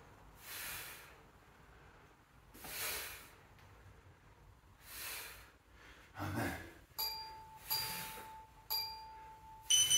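Heavy exhaled breaths every couple of seconds during a bodyweight exercise, then in the last three seconds an electronic interval timer beeping: three steady beeps about a second apart and a higher-pitched final beep marking the end of the work interval.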